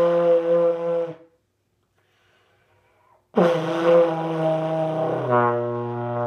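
Trombone played by a beginner with the slide held in one position. A sustained note cuts off about a second in; after a pause a second note starts at the same pitch and, about two seconds later, drops to a lower note that is held steadily. The drop comes as her lips loosen.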